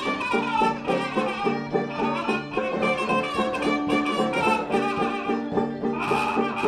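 Background music with a quick, even beat.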